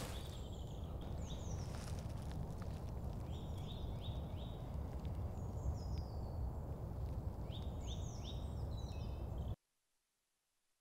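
Woodland ambience: songbirds giving short, quick falling chirps in several bouts over a steady low outdoor rumble. The sound cuts off abruptly to silence about nine and a half seconds in.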